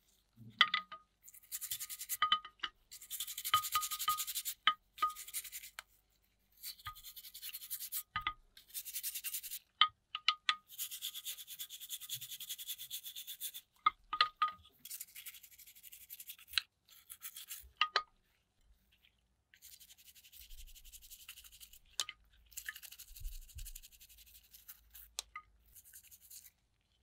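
Toothbrush bristles scrubbing a GoPro Hero 3+ battery in soapy water, in repeated strokes of one to a few seconds with short pauses between them. Small sharp clinks ring out now and then as the wet part and brush tap the glass dish.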